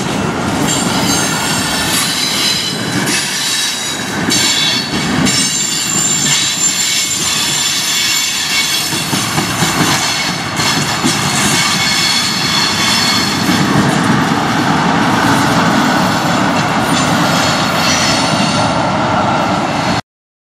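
Freight train's autorack and tank cars rolling past, their wheels squealing in several high steady tones over rumble and clatter, as though the brakes are on all along the train. The sound cuts off abruptly near the end.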